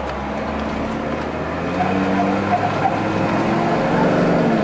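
Dodge Ram 2500's V10 gasoline engine pulling the truck under acceleration, heard from inside the cab, getting louder and rising slightly in pitch as it revs up, over a steady rumble of road noise.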